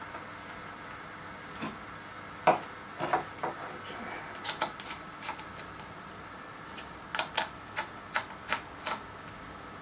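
Small clicks and taps of a small screwdriver working the screw terminal of a MOSFET module and of parts handled on a wooden board, over a faint steady hum. The sharpest click comes about two and a half seconds in, and a run of quick ticks follows near the end.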